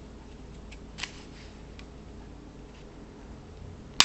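Cardboard blades and tape being handled: a few faint crinkles and taps over a low background, then a sharp click near the end.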